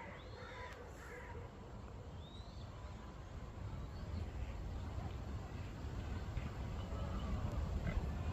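Woodland birds chirping, with a quick run of three short chirp phrases in the first second and a few faint calls after, over a low rumble that slowly grows louder.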